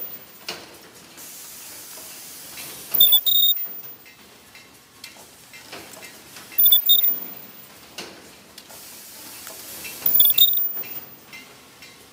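Automatic clear book (display book) production line running through its cycle: a short loud burst with a high beep-like tone and a hiss repeats about every three and a half seconds, over a lower steady machine noise.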